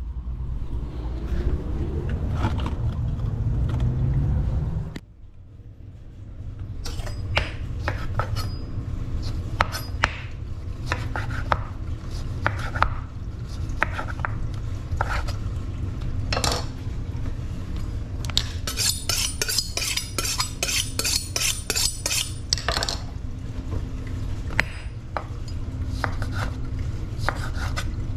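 A low rumble that cuts off about five seconds in. Then a chef's knife slicing lemons on a wooden cutting board, with scattered knocks and clicks of the blade on the board. A few seconds past the middle comes a run of rapid metallic clinking.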